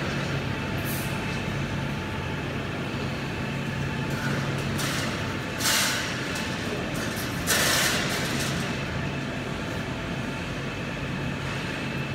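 Steady low hum of factory machinery, with a few short noisy bursts as a welded steel wire mesh panel is handled and laid onto the table of a mesh bending machine; the two loudest bursts come about halfway through.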